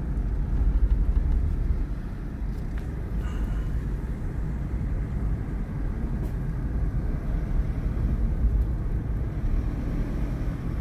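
Steady low rumble of a car's engine and tyres on the road, heard from inside the cabin while the car drives along at low speed.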